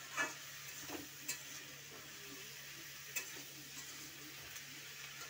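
Okra frying in a metal kadhai with a faint steady sizzle, while a metal spatula stirring it clinks and scrapes against the pan several times.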